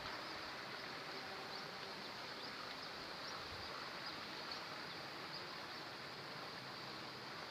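Steady outdoor ambience: a continuous wash of noise with insects chirping in a high band throughout.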